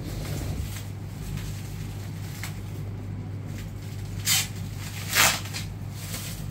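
Clear plastic wrapping on a pack of carpet tiles being pulled and crinkled by hand, with two short sharp crackles about four and five seconds in, over a steady low hum.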